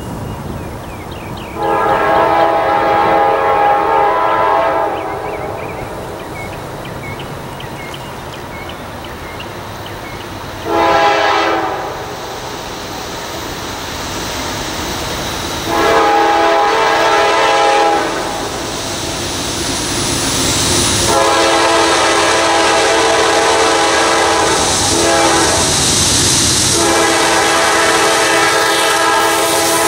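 Norfolk Southern freight locomotive's air horn sounding a series of blasts as the train approaches: a long blast about two seconds in, a short one near the middle, another long one, then a long sounding briefly broken near the end. Under the last blasts, the rumble of the engine and wheels grows as the train draws near.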